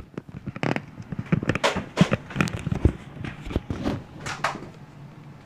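Irregular clicks, knocks and shuffling from a Nerf blaster being handled and players moving about.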